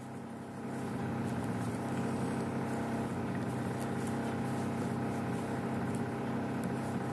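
Steady mechanical hum of a running motor, with faint light ticks scattered through it.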